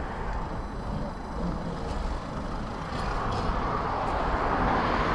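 Street traffic noise: a passing motor vehicle, growing louder in the second half.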